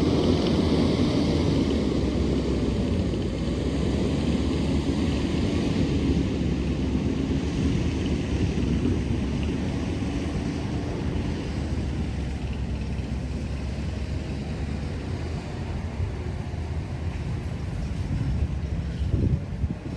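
Skid steer engine running steadily, slowly growing quieter, with a brief louder patch near the end.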